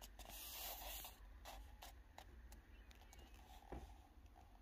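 Near silence with faint handling noise from a held paperback book: a short soft rustle in the first second, then a few light ticks.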